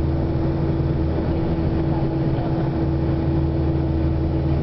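Engine and road noise heard inside a moving vehicle's cabin: a steady low drone with a held humming tone.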